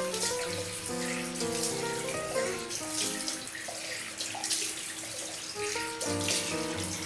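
Tap water running into a sink with splashing as a face is rinsed by hand, under background music with sustained melodic notes.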